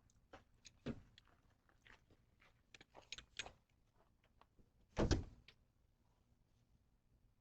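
Scattered clicks and knocks, a thud about a second in and a heavier thunk about five seconds in, the sound of a door being shut.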